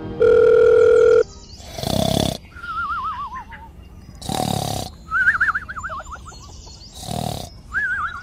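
Dubbed-in cartoon-style sound effects. A held electronic beep ends about a second in, followed by three short, loud growling bursts with warbling, falling whistles between them.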